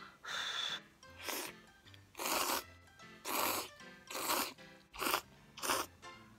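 A person slurping spicy instant ramen noodles off chopsticks, about seven short, noisy slurps roughly one a second, over faint background music.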